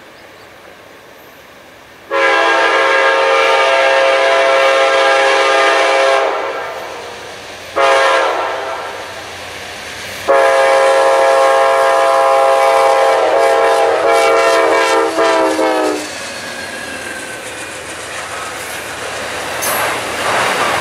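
Amtrak passenger train's locomotive horn, a multi-tone chord, blowing three times as the train approaches: a long blast of about four seconds, a short blast, then a long blast of about six seconds whose pitch drops slightly as the locomotive goes by. From about sixteen seconds in, the passenger cars rush past with wheels clattering over the rail joints.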